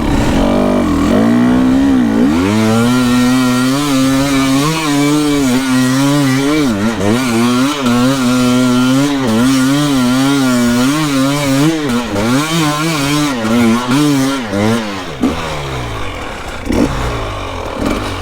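Dirt bike engine ridden hard, held at high revs with the pitch wavering under throttle. The revs drop briefly about two, six and twelve seconds in, then ease off and run quieter in the last few seconds.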